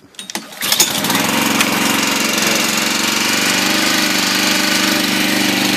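Log splitter's Honda 5.5 small gasoline engine pull-started with its recoil starter, catching within the first second and then running steadily.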